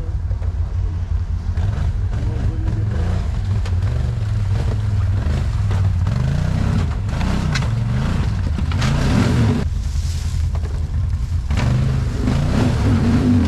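Quad bike (ATV) engine revving up and down again and again as it climbs a rocky, wet creek bed, with a louder, harder rev about nine seconds in.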